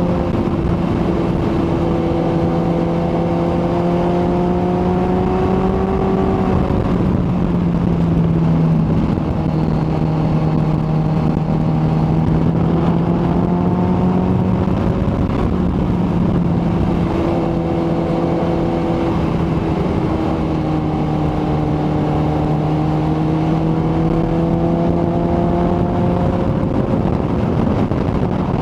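Kawasaki ZX-14R sport bike's inline-four engine running at a steady cruise under a steady rushing noise. Its pitch dips and recovers slightly a few times.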